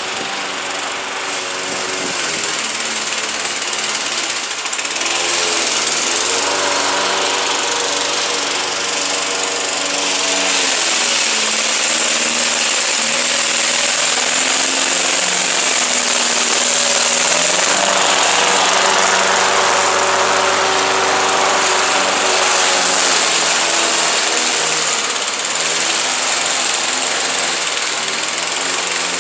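Craftsman 21-inch push mower's Briggs & Stratton 550 series 140cc single-cylinder four-stroke engine running hard while cutting thick, overgrown grass. Its pitch sags and recovers several times as the blade takes in the heavy grass.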